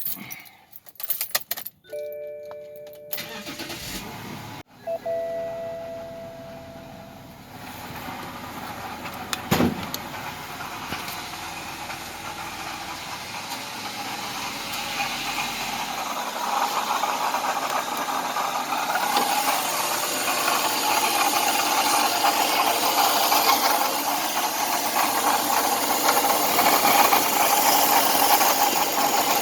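2004 BMW 530i: a few clicks and short tones, then the engine starts about nine seconds in and runs with a steady high screeching note, getting louder partway through. The screech is the noise whose source the owner is trying to locate.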